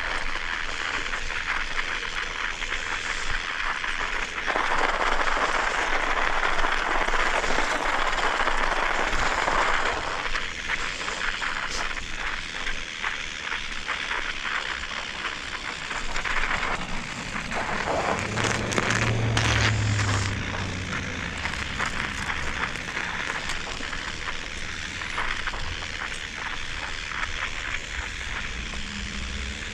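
Bicycle tyres crunching over snow while riding, a steady crackling rush that grows louder for several seconds near the start. A short low hum joins it a little past the middle.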